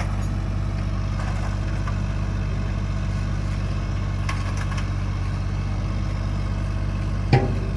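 A vehicle engine idling steadily, with a single short knock near the end.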